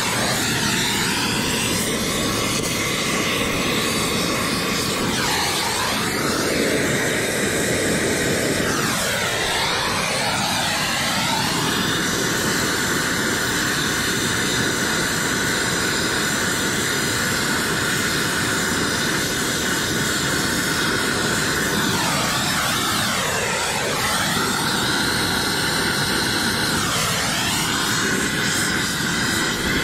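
Oxy-fuel brazing torch flame running with a steady hiss as it heats a copper refrigerant line joint for brazing. The tone of the hiss sweeps and shifts several times.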